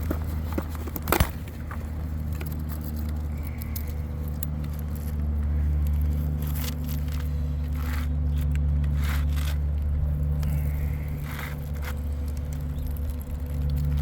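Irregular scrapes and crackles, the sharpest a click about a second in, over a steady low hum.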